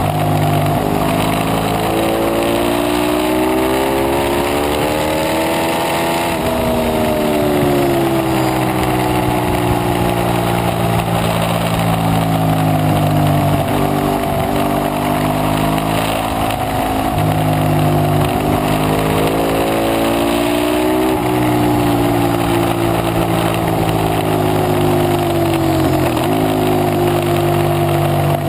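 Ducati 848 Evo Corse SE's L-twin engine running hard on track, its pitch climbing and then dropping sharply twice, about six seconds in and again around twenty seconds in, with wind rushing over the microphone throughout.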